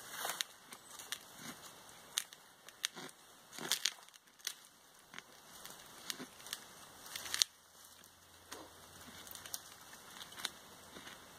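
Knife cutting into the base of a bent-over black spruce sapling: irregular sharp cracks and snaps of the wood fibres, the loudest about seven seconds in.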